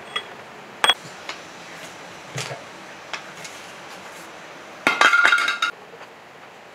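Loose steel parts of a rusty small diesel engine clinking and knocking as it is dismantled by hand: a few sharp taps in the first three seconds, then a brief ringing metal clatter about five seconds in.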